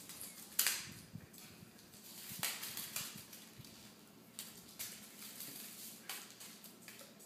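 Scattered taps and scuffs of a cat's booted paws on a tile floor, about half a dozen at uneven intervals, the loudest a little after the start.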